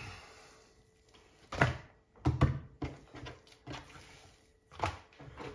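Sticky high-hydration pizza dough being peeled up off a countertop and flopped back over itself, giving several short wet slaps, the loudest about a second and a half in.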